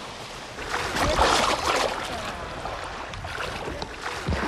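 Shallow sea water sloshing and splashing, swelling to its loudest about a second in, with a low thud near the end.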